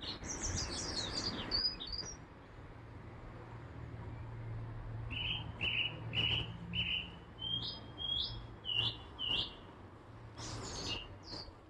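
Garden birds singing: a quick run of high descending chirps near the start, then a string of short, evenly spaced chirps and a few rising notes, with another quick burst near the end. A faint low hum runs underneath.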